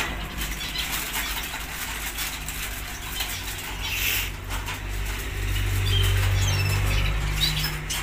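Rustling and light knocking as wooden budgie nest boxes and a paper bag are handled on a wire cage, with a few faint bird chirps near the end.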